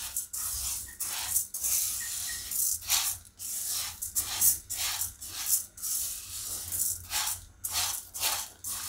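Dry toor dal grains swishing and rattling across a kadai as a silicone spatula stirs them, about two strokes a second. The raw dal is being dry-roasted without oil to drive off its moisture.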